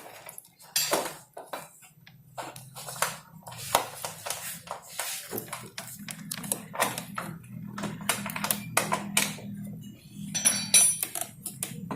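Metal tools and parts clinking and knocking in irregular short strikes while a scooter is being taken apart. A low steady hum sets in about five seconds in.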